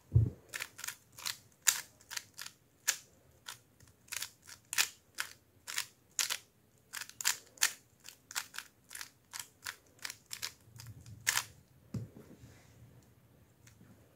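Plastic 3x3 speedcube being turned fast by hand: quick irregular clicks of the layers snapping round, several a second, for about eleven seconds, then softer turning. There is a dull thump near the start and another about twelve seconds in.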